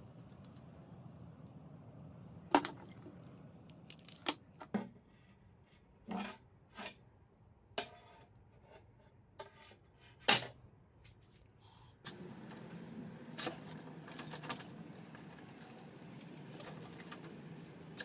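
Sharp clicks and knocks as small metal and plastic parts and a thin metal rod are handled and set down on a wooden workbench. The loudest come about two and a half seconds in and about ten seconds in. From about twelve seconds in, a steady background hiss carries a few lighter clinks.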